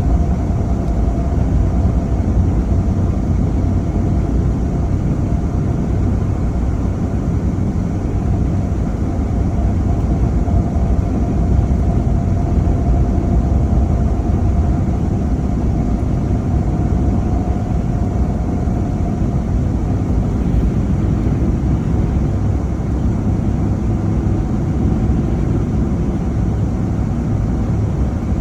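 Car driving: a steady low rumble of road and engine noise, with a faint steady whine above it.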